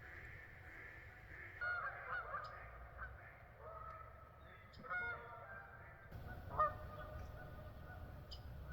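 A series of honking bird calls in short runs, the loudest a single honk about six and a half seconds in, over a low outdoor background.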